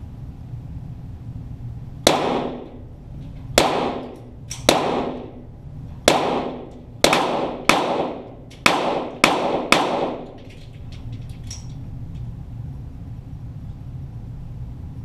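About ten .22 rimfire pistol shots from Walther GSP target pistols, fired at an uneven pace between roughly two and ten seconds in, each with a short echo trailing off in the range.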